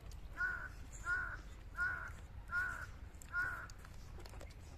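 A bird calling five times in an even series, one short call about every three-quarters of a second, then stopping.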